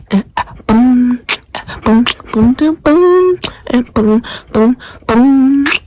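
Rhythmic vocal music: sharp percussive hits alternating with short held sung or hummed notes, some sliding in pitch, in a steady beat.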